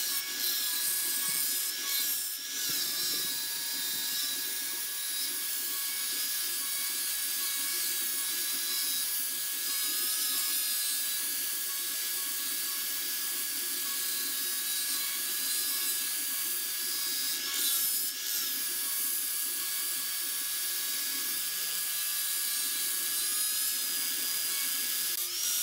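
Handheld angle grinder with a sanding disc running at a steady high whine, with a sanding hiss as the disc works the surface of a wooden vase spinning on a lathe. The sound dips briefly a few times.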